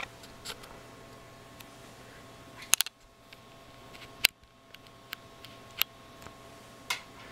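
A few sharp, isolated clicks, about six spread over several seconds with a close double click near the middle, over a faint steady electrical hum.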